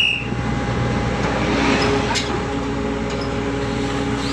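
Steady drone of a ship's engines and deck machinery, with a couple of faint knocks partway through.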